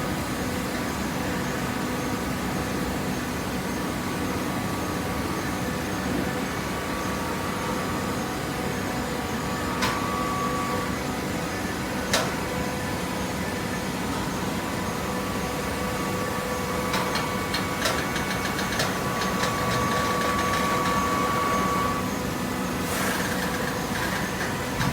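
Hydraulic cardboard baler running: a steady mechanical hum with a faint whine, broken by a couple of sharp clanks.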